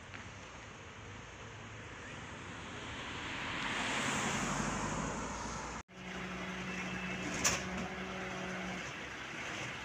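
A fire engine drives past, its engine and tyre noise swelling to a peak and then easing. After a cut, a fire engine's engine runs steadily while parked, with one sharp knock part way through.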